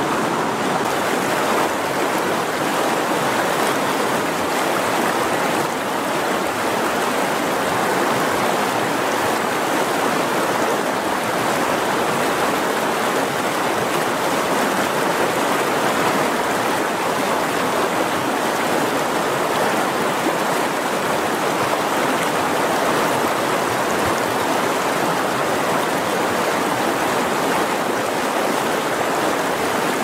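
Mountain river rushing over rapids: a steady, unbroken wash of fast-flowing whitewater.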